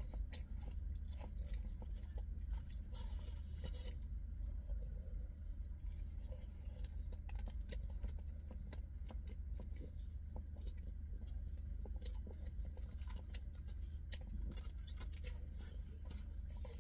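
A person eating rice and breaded chicken bites with a wooden fork: chewing, with scattered light clicks and scrapes, over a steady low hum inside a car.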